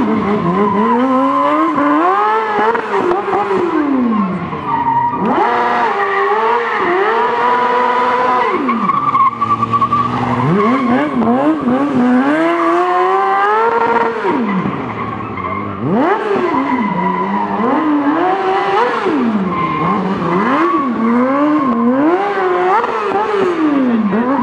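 Stunt motorcycle's engine revving up and dropping back over and over, a rise and fall every second or two, with a steady tyre squeal underneath.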